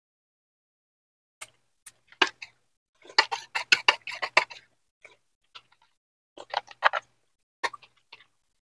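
Eating sounds: sharp clicks and taps in irregular clusters, starting about a second and a half in and densest in the middle, from a meal of cooked mangrove clams.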